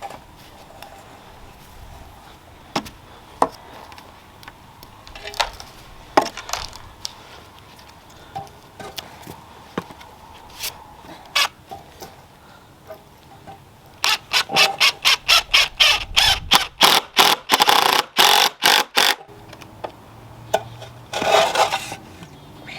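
Pallet wood being worked with hand tools: scattered knocks and clatter, then about five seconds of fast, evenly spaced scraping strokes, about five a second, and one more short scrape near the end.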